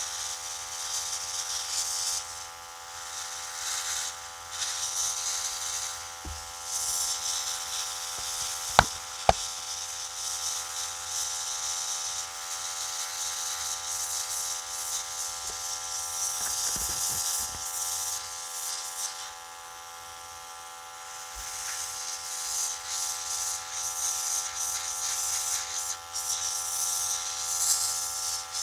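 Airbrush compressor running with a steady hum while the airbrush sprays paint in stretches of hiss several seconds long, with a pause about two-thirds of the way through. Two sharp clicks about nine seconds in.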